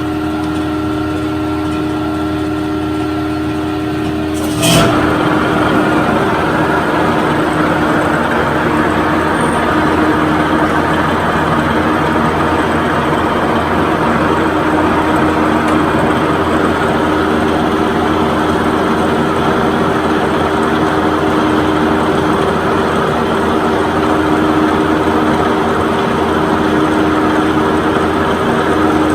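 A motor-driven machine running with a steady hum. About five seconds in there is a sharp knock, after which it runs with a louder, rougher noise.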